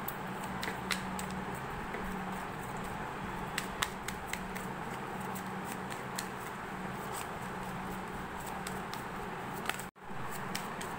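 Tarot cards being handled and drawn by hand: light scattered clicks and rustles over a steady low hum. The sound cuts out for an instant near the end.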